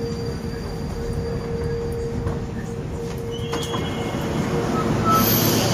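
A Moscow-2020 (81-775/776/777) metro train standing at a station platform: a steady low rumble and hum from its onboard equipment, with a few light clicks. Near the end comes a short, loud burst of hiss.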